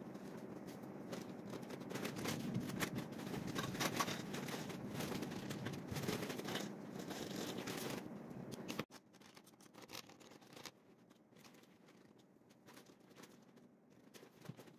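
Felt-tip marker pen scratching and tapping on paper, with the paper and pens being handled, over a steady background noise that drops away suddenly about nine seconds in, leaving only faint scratches and ticks.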